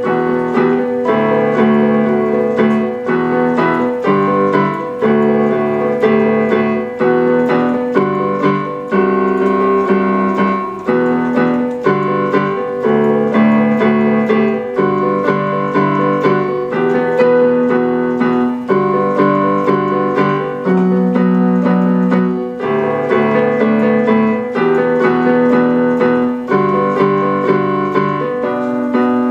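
Outro music played on an electronic keyboard: sustained piano-like chords that change about once a second in a repeating pattern.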